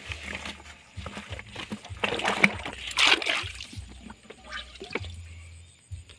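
Water splashing and sloshing in a small flooded hole in a mud bank as hands grope in it for a fish, with the loudest splashes about two to three seconds in.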